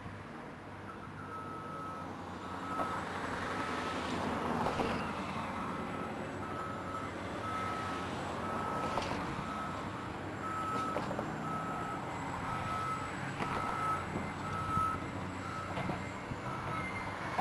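A reversing alarm beeps repeatedly at a steady pace over the steady running of a Caterpillar 365C L excavator's diesel engine and hydraulics, with a few knocks during earthmoving.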